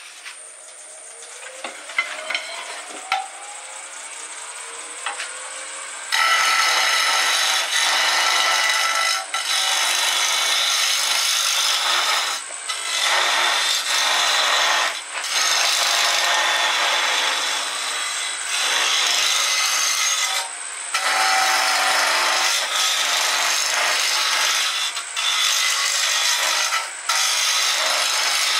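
Wood lathe spinning a hardwood handle blank while a turning chisel cuts it. For the first few seconds the motor is heard rising in pitch. Then the loud scraping of the cut starts, breaking off briefly every two to three seconds as the tool is lifted and set back on the wood.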